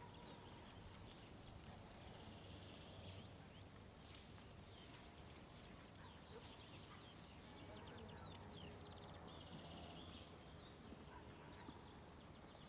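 Near silence: faint open-air room tone with a low hum and a few faint, short high chirps, mostly in the second half.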